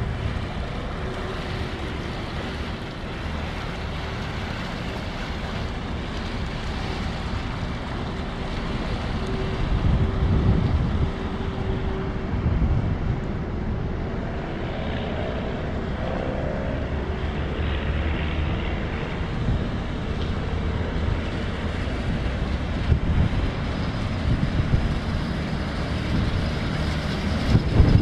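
Deutz diesel engine of an inland cargo ship running with a steady low drone as the vessel moves slowly past at close range, louder near the end. Wind buffets the microphone.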